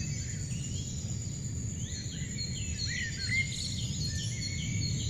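Outdoor bird-and-insect ambience: scattered short bird chirps over a steady high insect drone and a low background rumble.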